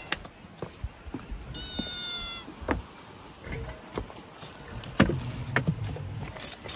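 A domestic cat meows once, a single high call of just under a second about one and a half seconds in. Around it come several sharp knocks and clatters, the loudest about five seconds in.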